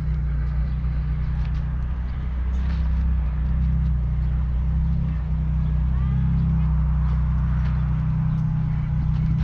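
A motor running steadily with a low, even hum, with faint short chirps and small clicks over it.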